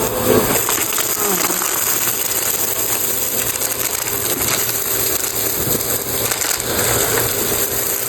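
Bissell CleanView Rewind upright vacuum running with a steady high motor whine, sucking up crunchy debris such as coins and beads off a rug with continuous crackling and rattling.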